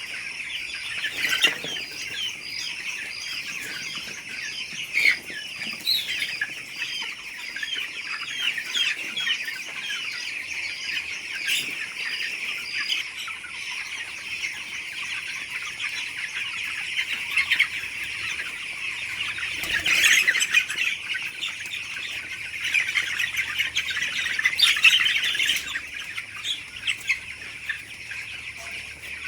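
A flock of young chickens peeping and chirping in a dense, continuous chorus, with brief wing flapping and louder flurries of calls about 20 and 25 seconds in.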